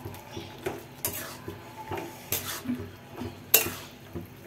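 Metal spatula scraping and knocking against a kadai while stirring a potato and flat-bean curry, in irregular strokes, with the loudest knock about three and a half seconds in.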